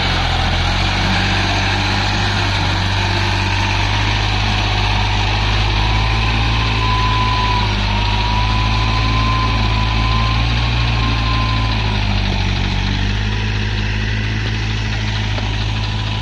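Tractor diesel engine running steadily at a constant speed, with a faint wavering whine about halfway through.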